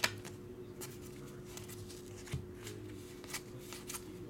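Pokémon trading cards being flipped through by hand one after another, a short soft flick about two or three times a second, over a faint steady hum.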